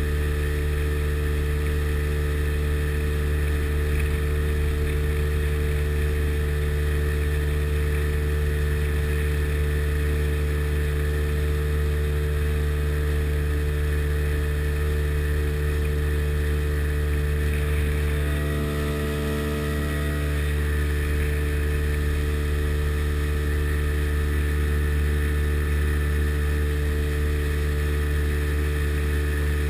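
Sea Ray Sea Rayder jet boat's two-stroke engine running steadily under way, with a constant engine note. The note briefly drops and shifts about two-thirds of the way through, then settles back to the same steady running.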